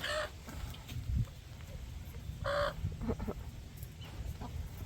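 Chicken hens clucking, with two louder calls, one right at the start and one about two and a half seconds in.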